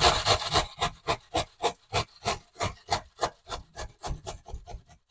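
Onion being grated by hand on a metal box grater: a dense run of scraping at first, then quick rasping strokes at about three or four a second that grow fainter before they stop.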